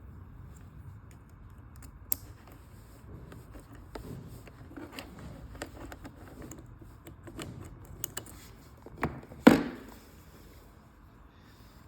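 Small clicks and rattles of hard plastic and metal parts being handled, with two louder knocks about nine seconds in, the second the loudest.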